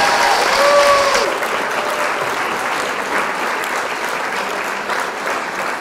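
Theatre audience applauding at the end of a song, with a few voices cheering in the first second or so.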